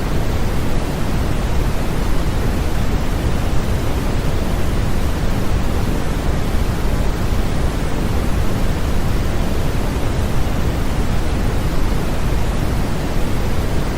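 Continuous white noise for infant sleep, weighted toward the low end like pink noise, steady and unchanging.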